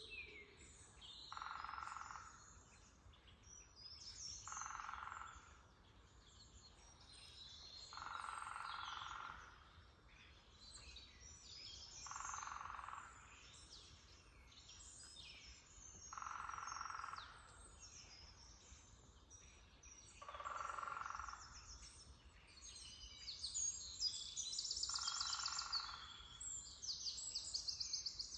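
Small songbirds chirping and trilling in a spring forest, with a fast high trill near the end. A woodpecker drums on a tree in short rolls of about a second, repeated roughly every four seconds.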